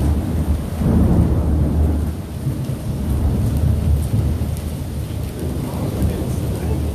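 Thunder rumbling, really loud and drawn out, strongest about a second in, over steady rain.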